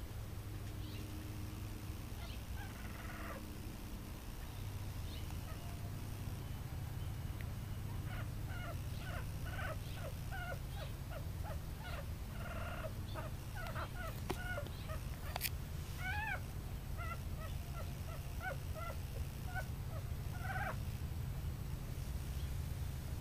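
Two-week-old toy poodle puppies squeaking and whimpering: a run of short, high squeaks, some rising and falling, thickest from about a third of the way in to near the end, over a steady low hum.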